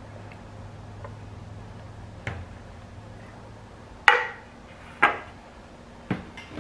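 Four sharp knocks of kitchenware being set down and moved on a granite countertop, the loudest two about four and five seconds in, each ringing briefly, over a faint steady low hum.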